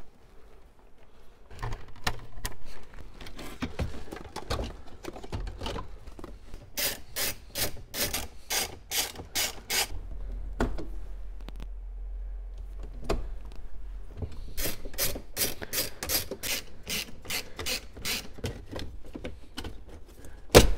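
Aftermarket car radio being fitted back into a dashboard: wiring and plastic rustle and knock, with two runs of quick, evenly spaced ratchet-like clicking. Near the end there is one loud sharp snap as the trim bezel is pressed in.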